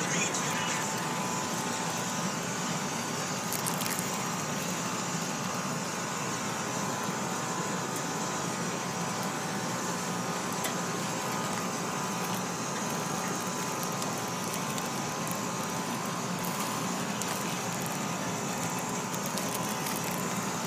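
Burger patties and hot dogs sizzling on a charcoal grill: a steady hiss with a few faint crackles.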